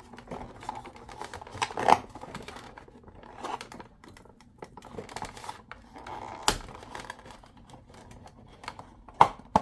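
Plastic kit packaging being handled and rustled as a small screwdriver is worked free of it, with scattered small clicks and a couple of sharper clicks, one about six and a half seconds in and one near the end.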